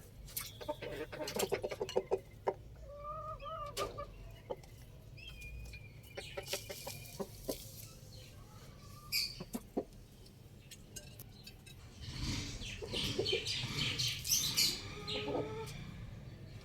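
Chickens clucking with short calls, among scattered sharp clicks and knocks. A burst of rustling noise comes from about twelve seconds in to near the end.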